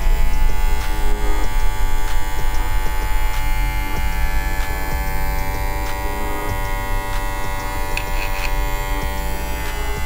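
oneisall cordless pet hair clipper switched on and running steadily, its blade motor giving an even buzzing hum that is not very noisy.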